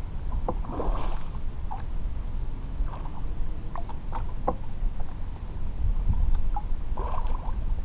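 Water lapping against a fishing kayak's hull, with a low wind rumble on the microphone, scattered light ticks, and two short rushing bursts about a second in and near the end.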